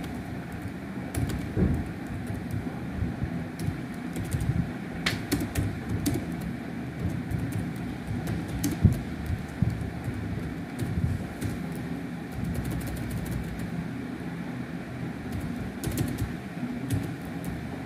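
Typing on a computer keyboard: irregular key clicks over steady low background noise.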